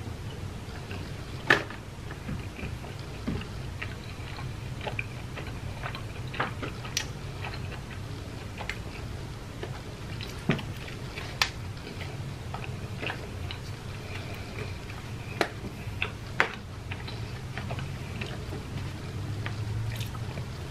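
Close-miked chewing and biting of breaded fried food, with irregular sharp clicks and crunches of mouth and food over a steady low hum.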